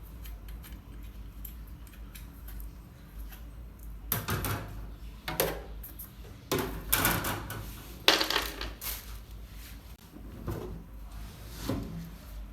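Metal parts of a ceiling fan clinking and clattering as they are handled, in several short bursts, over a steady low hum.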